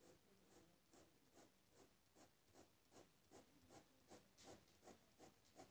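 Faint pencil strokes scratching on paper as a drawn plane is shaded in with back-and-forth hatching, about two to three strokes a second, quickening a little near the end.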